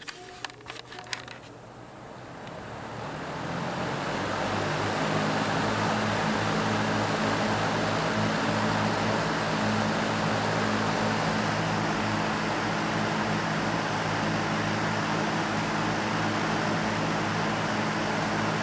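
Box fan switched on with a few clicks, its blades spinning up over a few seconds into a steady rush of air over a low motor hum.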